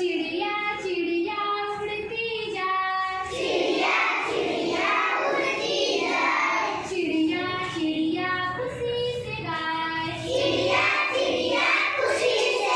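Children singing a counting action song, with held sung notes.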